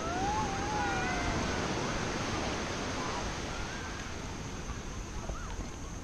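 Steady rush of wind and surf on a beach. Over it come a few high whistled glides: a drawn-out falling whistle about a second in, and short curling whistles later on.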